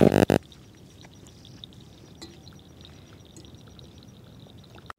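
A loud pitched sound cuts off in the first half-second. After it comes faint outdoor ambience: a soft, rapid chirping of small animals high in pitch, with a few light clicks.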